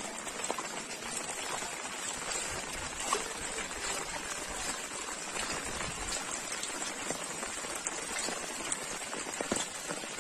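A steady wash of rain falling on wet ground, mixed with shallow floodwater running over a footpath, with scattered small drop ticks.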